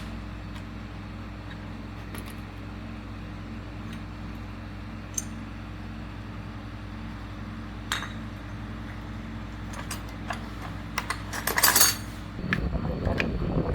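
Small metal parts clinking and tapping now and then while pump parts are handled, with a cluster of clinks near the end, over a steady low hum. About a second before the end, a louder rushing noise starts.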